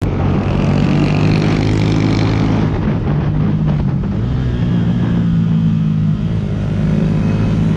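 Yamaha motorcycle engine running under steady throttle at about 50 km/h, heard from the rider's position, with wind rushing over the microphone. The engine note dips about a third of the way in and rises again a little past the middle.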